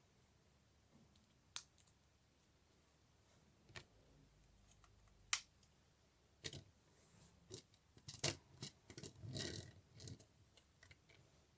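Irregular small plastic clicks and taps of toy building bricks being handled and pressed together, busiest from about six to ten seconds in.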